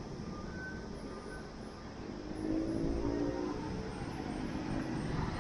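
A motor vehicle engine running close by, getting louder about two seconds in as it approaches.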